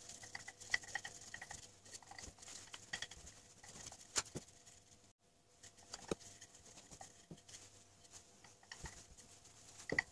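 Wooden rolling pin rolling out shortcrust pastry dough on a floured tabletop: faint, irregular soft knocks and rubbing as the pin is pushed back and forth, with a couple of louder knocks about four and six seconds in.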